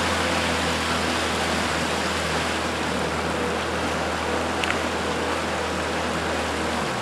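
Small Evinrude tiller outboard motor running steadily at cruising throttle, with rushing water and wind noise from the boat under way. The low engine drone drops away at the very end.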